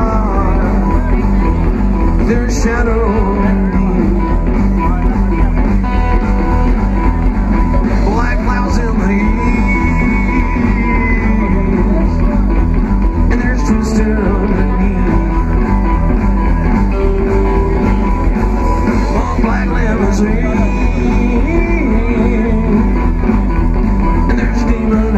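Rock and roll band music with a singer and guitar, recorded live, playing steadily.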